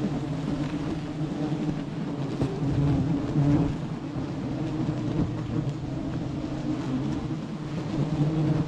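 Honey bee colony buzzing around an opened wild comb: a steady low hum.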